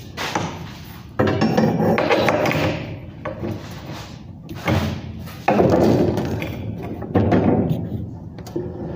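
Thin steel reinforcing bar being handled and knocked while it is bent into a ring: several sudden clanks and clatters, each trailing off with echo.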